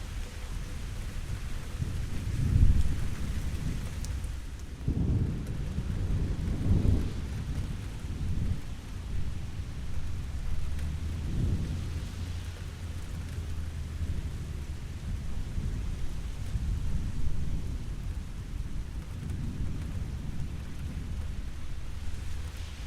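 Steady rain falling, with low rolls of thunder rumbling several times, the strongest a few seconds in.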